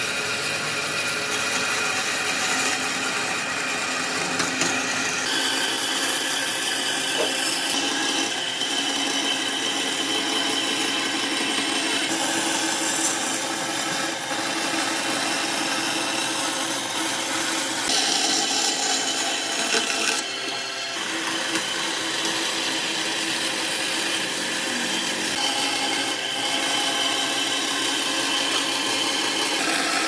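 A power tool working wood: a rough grinding noise with steady motor tones over it. The pitch and texture shift abruptly every few seconds.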